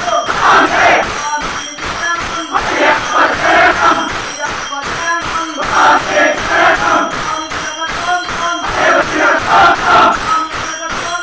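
A group of men singing an Ayyappa bhajan in chorus, with small hand cymbals struck in a quick steady beat and hand clapping.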